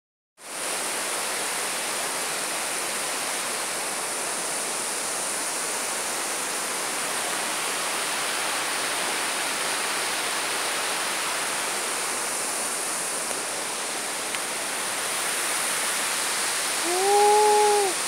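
Steady rushing of a river's rapids pouring over rock. Near the end a single short pitched call rises and falls over about a second, louder than the water.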